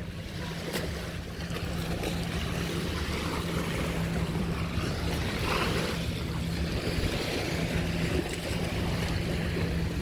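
Steady outdoor wind noise rumbling on the microphone, with a constant low hum underneath.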